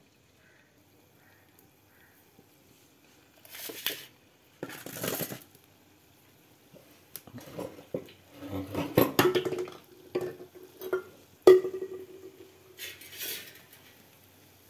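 Metal spoon clattering and clinking against a kadhai as laddus go into hot oil to fry, with a few short hisses about four, five and thirteen seconds in. The loudest clank, near the end, rings on briefly.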